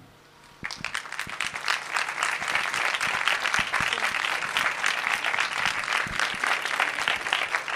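A small crowd applauding with hand claps, starting about half a second in and keeping up steadily.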